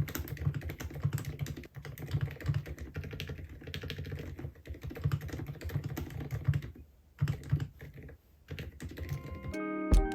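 Typing on an IQUNIX mechanical keyboard: a fast, continuous run of key clacks, with two short pauses about seven and eight seconds in.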